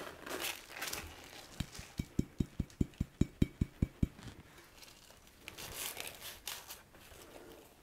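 A glass jar tapped about a dozen times in quick succession, roughly five taps a second, to shake out crumbly oxidized fireweed leaves, with the dry rustle of the leaves pouring onto baking paper before it and of a hand spreading them across the paper near the end.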